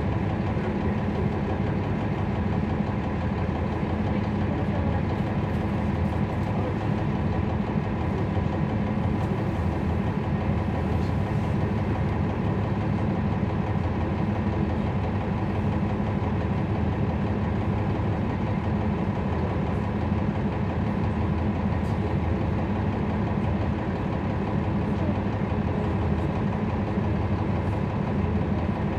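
A 2011 NABI 416.15 transit bus's Cummins ISL9 diesel engine running steadily, heard from inside the bus.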